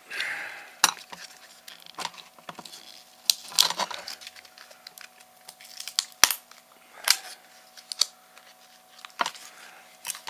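Laptop battery pack being pried apart by hand: irregular sharp clicks and snaps of plastic, with a short crinkle at the start, as the lithium-ion cells are worked loose from the two-sided tape holding them in the case.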